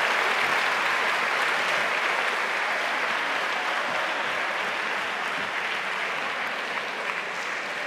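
Spectators applauding in a large hall, the applause slowly fading.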